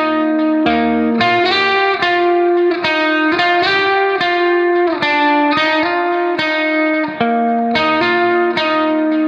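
Background music: a plucked guitar melody, its notes changing several times a second.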